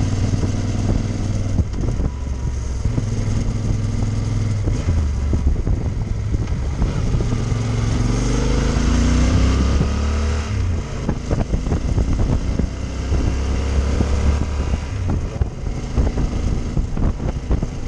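Adventure motorcycle's engine running under way, its pitch shifting with throttle and gears and climbing around eight to ten seconds in, with wind buffeting the microphone.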